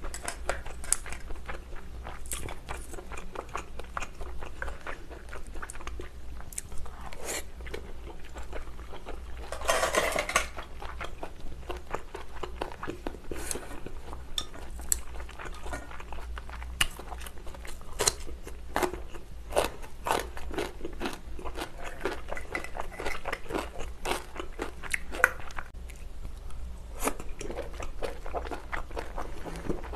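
Close-miked eating sounds: chewing seafood, with chopsticks and scallop shells clicking and clinking against a glass dish, and a louder burst about ten seconds in.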